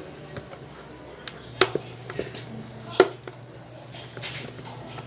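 Plastic clips of a scooter's turn-signal lens being pried loose, giving two sharp snaps about one and a half and three seconds in, with lighter taps and rattles between.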